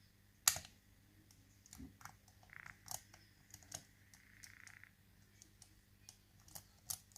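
Faint, scattered clicks and light scraping of a steel lock pick working the spool pins inside an ASSA 600 pin-tumbler rim cylinder, with one sharper click about half a second in.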